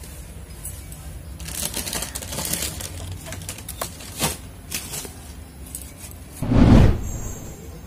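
A lemon being sliced on a boti, the fixed upright curved blade, with short crisp cutting and clicking sounds through the first half. About six and a half seconds in comes one loud dull thump, the loudest sound here.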